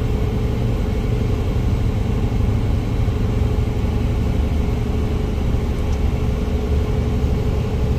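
Steady low rumble of a motor vehicle running, with a faint steady hum above it and no change in pitch or loudness.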